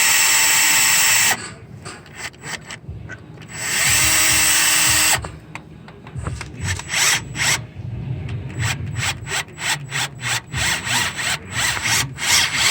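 Cordless Milwaukee drill running at speed, boring out a broken EGR bolt, stopping about a second in; a second short run starts about four seconds in. The rest is a quick, irregular run of sharp clicks and knocks.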